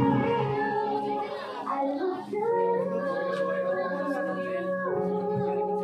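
Song with a sung vocal line on long held notes, played as dance music; the heavy bass drops out just as it begins.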